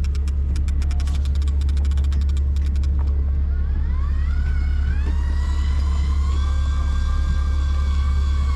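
Boat engine's steady low drone, over which come a quick run of clicks, then a whine that rises in pitch about four seconds in and holds steady: an electric fishing reel winding line up from deep water.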